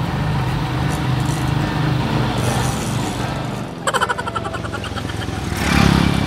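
A motorcycle engine running along the road, its sound rising to the loudest point near the end as it passes close. There is a brief run of sharp clicks about four seconds in.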